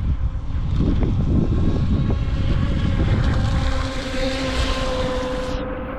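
Wind buffeting the microphone, the loudest sound throughout, over the steady whine of a UDIRC Arrow RC boat's electric motor out on the water. The whine grows stronger about halfway through.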